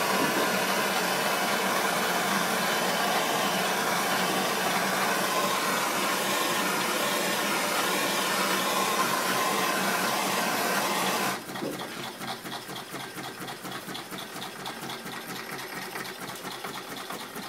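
A handheld gas torch hisses steadily as it heats a homemade Stirling engine, then stops abruptly about 11 seconds in, leaving a quieter, fast, even mechanical clatter of the Stirling engine running.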